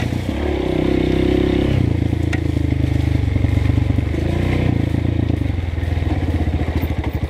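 Honda CRF230F single-cylinder trail bike engine running at low revs, with the throttle opened briefly about half a second in and again around four seconds. A short knock a little after two seconds.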